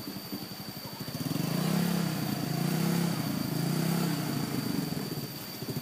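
Small motor scooter engine ticking over, then from about a second in revving up and easing off several times as the scooter moves slowly along, its pitch rising and falling with each swell.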